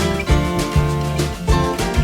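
Background music: strummed acoustic guitar in a country style with a steady beat.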